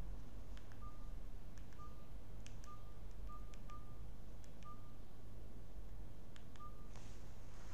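Short electronic beeps, all of one pitch, about seven of them at irregular intervals, with a few faint clicks, over a steady low hum.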